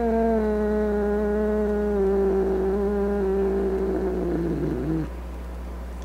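A grumpy cat's long, drawn-out yowl whose pitch sags slowly, breaking off with a short wobble about five seconds in.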